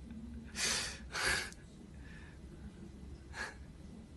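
A man's breath, heard close to the phone microphone: two short, sharp breathy exhales about a second in, and a shorter one near the end, like quiet breathy chuckles.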